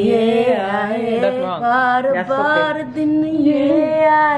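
A woman singing unaccompanied, holding long notes that slide up and down.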